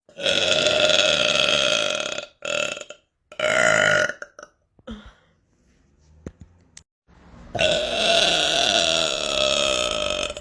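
A person burping loudly four times. First comes one long, drawn-out burp of about two seconds, then two short burps. After a quiet pause there is another long burp of about three seconds near the end. Each starts and stops abruptly.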